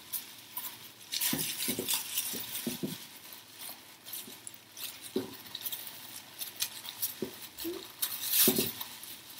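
Thin plastic bag crinkling and rustling in short irregular bursts as it is knotted tightly around a glass bowl, with small clicks of handling and a louder crinkle near the end.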